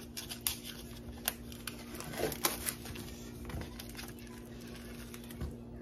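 Small kitchen knife cutting raw chicken tenderloins on a wooden cutting board: scattered light taps and clicks of the blade and handling of the meat and its plastic-wrapped tray, over a steady low hum.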